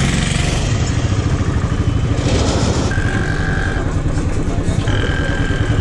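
Royal Enfield Bullet's single-cylinder engine running steadily at riding speed, with a horn sounding twice, each for about a second, near the middle and near the end.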